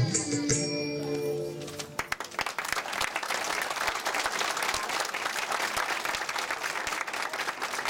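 The dance music ends on held notes about two seconds in, and the audience then applauds steadily.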